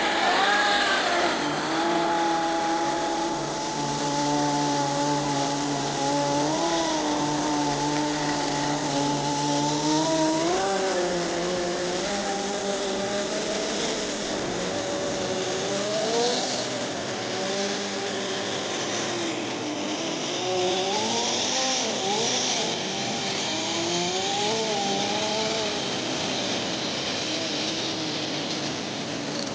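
Small two-stroke Kyosho GX-15 nitro engine of an RC snowcat running. It holds a fairly steady pitch for the first several seconds, then revs up and down repeatedly.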